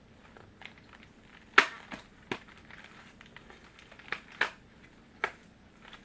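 Cardboard Pretz snack box being prised and torn open by hand: a string of sharp cracks and snaps of the card, about six in all, the loudest about one and a half seconds in.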